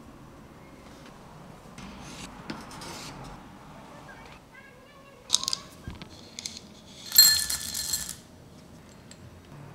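Metal kitchenware clinking and scraping: a few light clinks, then a short ringing metallic clatter about seven seconds in, the loudest sound.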